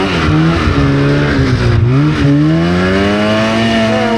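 Polaris RMK 700 snowmobile's two-stroke engine running under throttle in deep snow: its pitch dips briefly at the start, drops sharply about two seconds in as the throttle comes off, then climbs steadily as the rider gets back on the gas.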